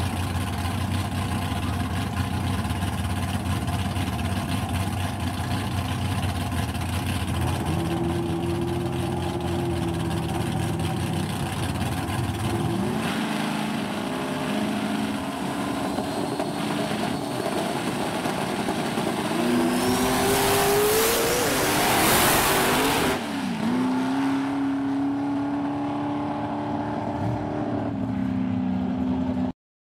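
Drag racing engines running at the start line, revving up and down in short rising pulls. A launch at full throttle, the loudest part, comes about two-thirds of the way in with a climbing engine note, and then the engines settle into a steadier drone. The sound cuts off suddenly just before the end.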